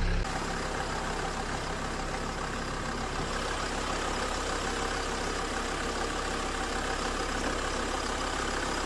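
SsangYong Musso's 2.9-litre turbo diesel (OM603 type) idling steadily with the bonnet open.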